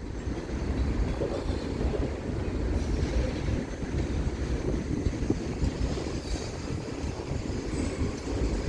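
Freight cars of a Kansas City Southern train rolling past: a steady noise of steel wheels on rail.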